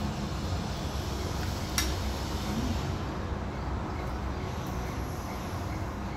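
Steady low rumbling background noise, with a single sharp click about two seconds in as a spoon is set down in the frying pan.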